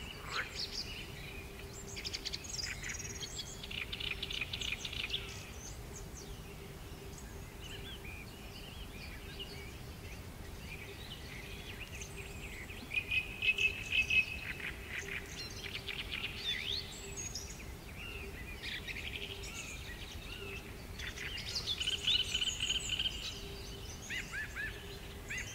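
Birds chirping and trilling in repeated bursts of quick, high notes, loudest about halfway through and again near the end, over a steady low hum and faint background noise.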